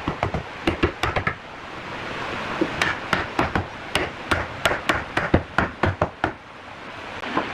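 Wooden mallet knocking on solid-wood door-frame posts and rails, driving the pieces together. There is a quick run of sharp knocks, a pause of over a second, then a steady run of about four knocks a second that stops near the end.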